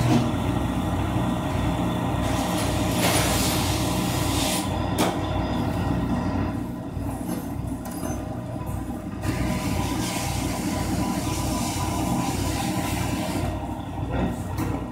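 A loud, steady machine noise that starts abruptly: a low rumble with a hiss above it and a couple of steady tones.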